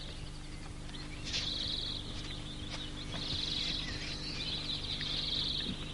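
High, fast trilling chirps in several bursts of about a second each, over a faint steady low hum.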